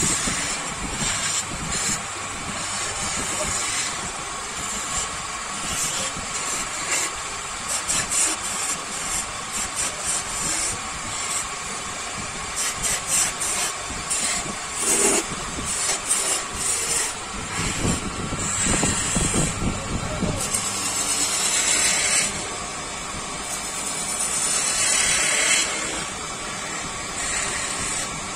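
A motor-driven workshop machine running steadily under a hiss, with dense, irregular scraping as work is held against it, swelling louder a few times in the second half.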